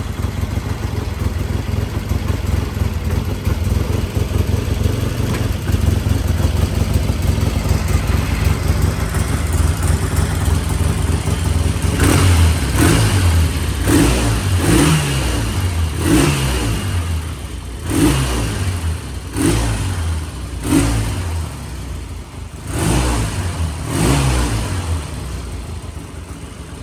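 Vintage British motorcycle engine idling steadily through new stock mufflers. From about halfway through, the throttle is blipped repeatedly, roughly once a second, each rev rising and falling back to idle.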